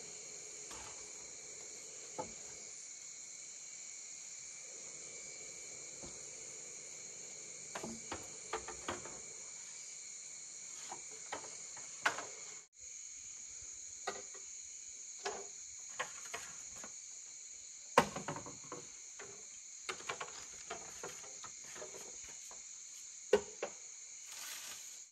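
Steady, high-pitched insect chorus, with scattered sharp knocks and taps throughout.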